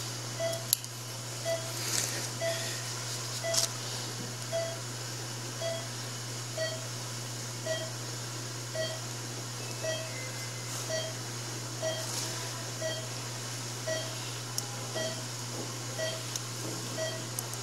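Operating-room patient monitor beeping about once a second, the pulse oximeter's tone marking each heartbeat, over a steady low hum. A few faint clicks of surgical instruments.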